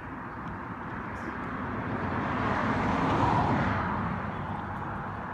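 A vehicle passing by, its noise swelling to a peak about three seconds in and then fading away.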